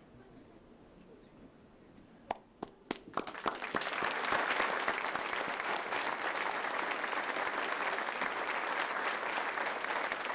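An audience applauding. A few separate claps about two seconds in quickly build into steady applause from a large crowd, which continues to the end.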